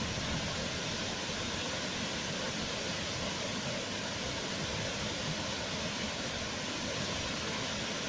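Wide waterfall pouring over a rock ledge into a pool: a steady, even rush of falling water.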